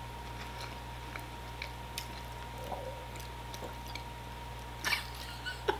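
A person chewing a mouthful of food, with soft wet mouth sounds and a few small clicks, and a louder smack of the lips about five seconds in. A faint steady electrical hum lies underneath.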